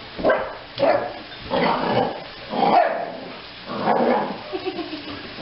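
Dog barking about five times in quick succession.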